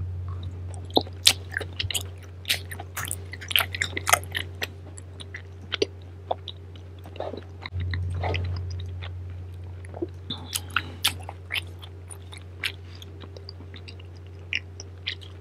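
Close-miked chewing of food from a tteokbokki set: many sharp mouth clicks and wet smacks, over a steady low electrical hum.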